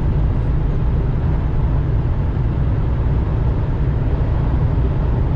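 Steady low rumble of a semi-truck's engine and road noise, heard inside the cab while driving.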